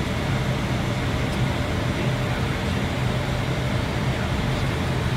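Steady cockpit noise of an Airbus airliner on approach: rushing airflow and air-conditioning hum over a low drone, with no distinct events.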